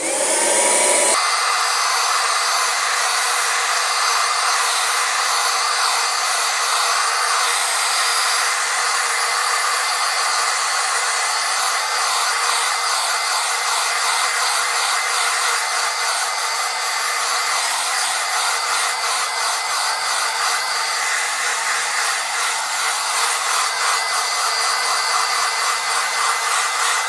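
Licorne cordless handheld wet-and-dry vacuum cleaner switched on with its brush head fitted, its small motor running with a steady whine while sucking up debris from the floor, slowly.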